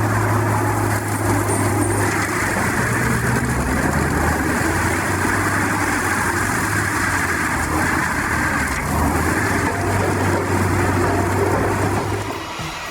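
AHWI RT 800 tracked forestry mulcher running steadily under load, its 630-horsepower engine giving a constant low drone over the noise of the mulching drum chewing into a stump. The sound drops away about twelve seconds in.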